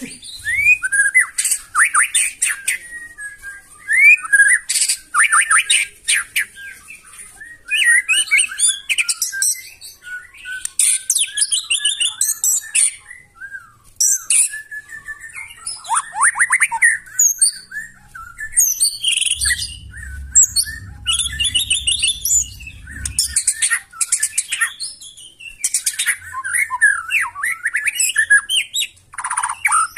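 White-rumped shama (murai batu) singing a loud, varied song of whistles, rapid trills, sweeping down-slurs and harsh buzzy notes, delivered in bursts with short pauses. This is the harsh, aggressive 'nembak' style of song. A faint low rumble runs underneath for a few seconds about two-thirds of the way in.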